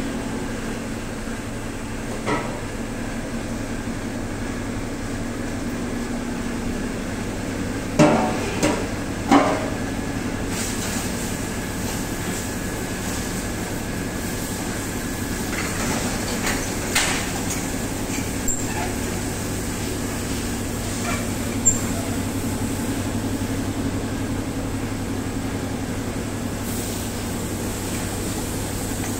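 Steady mechanical hum of a hot-air rack oven running, with a few sharp metal clanks from the steel bake rack and its trays. Three of the clanks come close together about eight to nine and a half seconds in.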